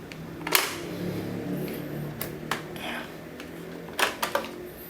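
Plastic clicks and knocks as the brush cover is unclipped and the main roller brush is popped out of a Xiaomi Mi robot vacuum. There is a sharp click about half a second in, two more around two seconds later, and a quick cluster of clicks near the end.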